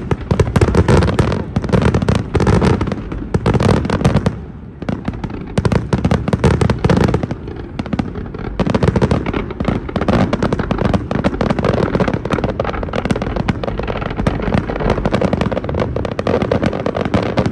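Fireworks finale barrage: a dense, rapid string of bangs and crackle, thinning briefly about four seconds in, then cutting off abruptly at the end.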